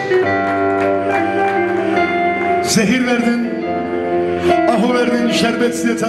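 Live band music with sustained held chords, and a male singer coming in about halfway through with a wavering, drawn-out vocal line.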